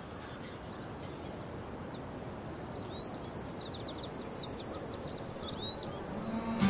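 Rural outdoor ambience: a steady low rush of wind with small birds chirping in quick short calls through the middle, and cattle starting to moo near the end.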